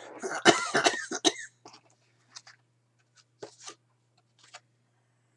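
A man coughing several times in quick succession. Faint clicks and rustles of flashcards being handled follow.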